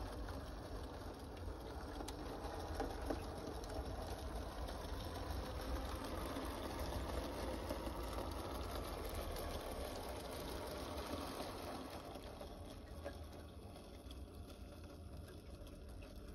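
Heljan 009 narrow-gauge model locomotive Lyn and its coaches running on the track: a steady rolling and motor noise that grows louder in the middle as the locomotive passes close, then fades over the last few seconds.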